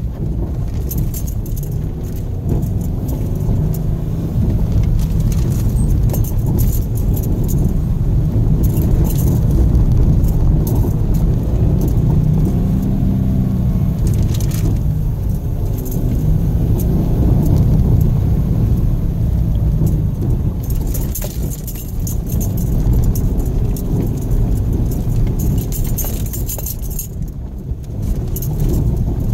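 Cabin noise of a 2014 Subaru XV Crosstrek driving on a rough dirt road: a steady low rumble of its flat-four engine and tyres, with repeated bursts of light rattling and clicking as the car is shaken over the ruts.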